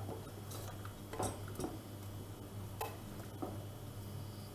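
Wooden spoon stirring thick tomato sauce in a stainless steel pot, knocking lightly against the pot about five times at uneven intervals, over a faint steady low hum.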